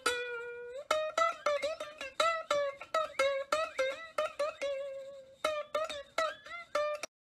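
Background music: a quick melody of plucked string notes, about four or five a second, cutting off abruptly shortly before the end.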